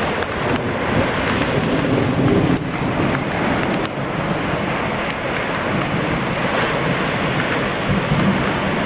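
Ocean surf breaking steadily on the beach, with wind noise on the microphone.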